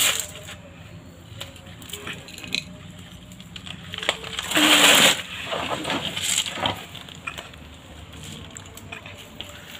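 Hands digging and crumbling loose potting soil in a plastic tub: scattered small clicks and scrapes, with a louder rustling scrape about halfway through.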